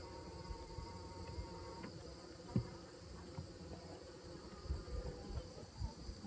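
Honeybees buzzing around an open top bar hive, with a few dull bumps, the loudest about two and a half seconds in.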